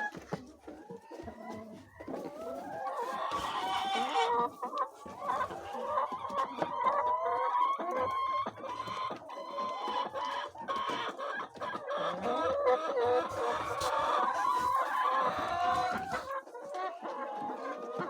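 A flock of laying hens clucking and calling over one another, the chorus growing louder and denser about three seconds in.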